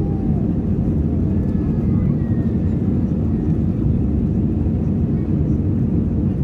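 Steady, loud low rumble of a jet airliner's engines and rushing air, heard inside the passenger cabin during the climb after takeoff.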